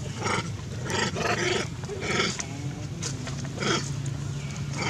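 Macaques squabbling, giving a string of short, harsh calls about twice a second.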